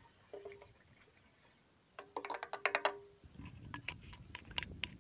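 Hand sanitizer being poured from a small plastic bottle into a motorcycle fuel tank: a short steady tone with clicks, then a louder one about two seconds in with rapid clicking. After that the plastic bottle crackles and clicks as it is handled.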